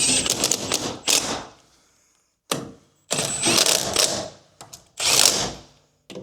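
Mechanical ratcheting clicks in about six short bursts, each a second or less, with brief pauses between them.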